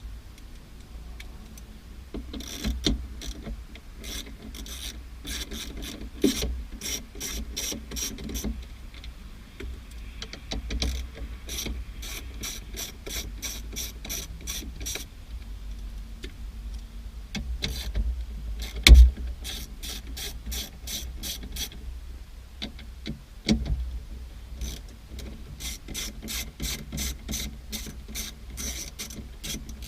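Hand socket ratchet clicking in several runs of quick, even clicks with short pauses between, as 10 mm nuts holding the shifter's bottom insulator are turned loose. A sharp knock about two-thirds of the way in.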